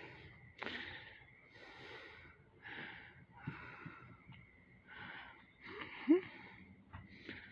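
A person breathing hard close to the microphone, quick breaths about one a second, with a short rising squeak about six seconds in.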